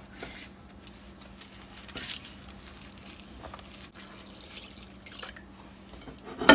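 Water poured from a plastic measuring jug into a pot of tea bags, a faint trickling and splashing with a few light clicks. A sharp knock right at the end.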